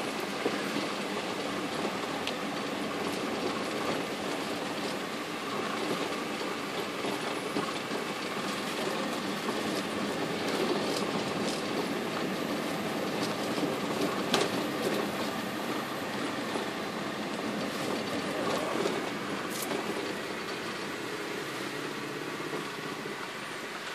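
Steady noise inside a moving car's cabin in the rain: rain on the roof and windshield and tyres on the wet road, with a few sharp ticks.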